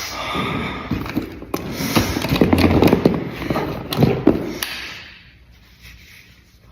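Beatboxer's vocal sound effect: a dense run of sharp clicks and low thumps, loudest in the middle, dying away after about five seconds.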